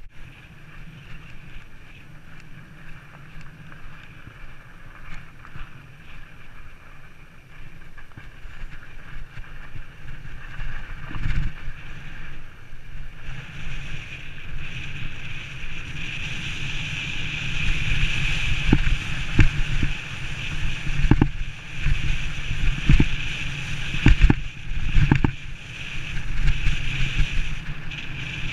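Steady rushing wind and ride noise from a camera moving along a rough desert trail, growing louder about halfway through, with sharp knocks from bumps in the second half.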